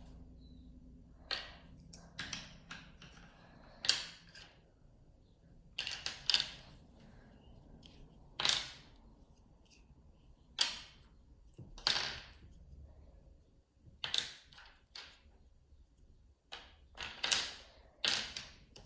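Plastic Rubik's cube pieces clacking as they are picked up and set down one by one while being sorted into corner and edge pieces: irregular sharp clicks a second or two apart, some in quick pairs.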